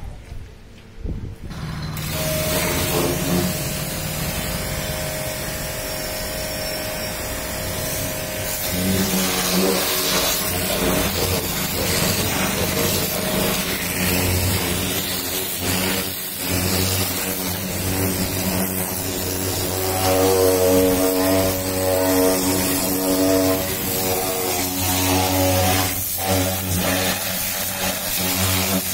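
Pressure washer running: its motor and pump hum steadily under the hiss of the water jet striking the car. The motor drops out for a moment at the start, then runs again, its pitch shifting a couple of times as the load changes.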